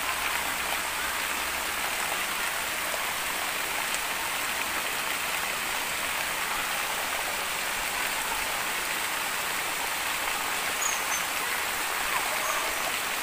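Steady rushing of a small rocky stream's flowing water.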